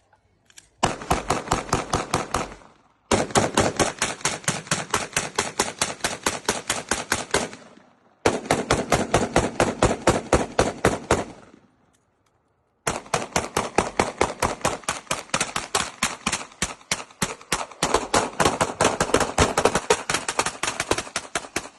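Rapid gunfire in four long strings of evenly spaced shots, several shots a second, with short pauses between strings.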